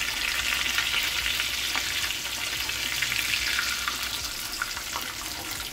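Breaded chicken breasts and basa fish fillets sizzling steadily in hot frying oil, with scattered small crackles.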